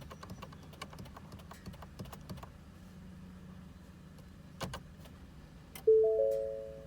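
A run of light, quick clicks over the first couple of seconds and a single louder click about four and a half seconds in. Then the 2022 Ford F-150's three-note dash warning chime sounds once near the end and fades, part of a chime that repeats about every second and a half.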